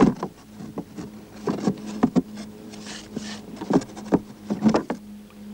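Irregular knocks and taps of hands against a glass window pane, about a dozen in all, some in quick pairs, over a steady low hum.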